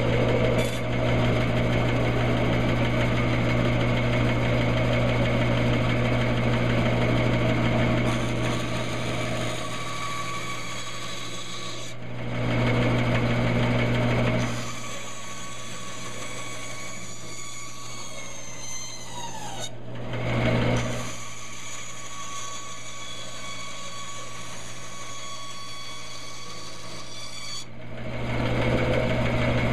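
Bandsaw running with a steady motor hum while its blade cuts through basswood. The cutting comes in louder stretches, at the start, around 12 seconds, briefly around 20 seconds and again near the end, with quieter spells between them when the saw runs with less load.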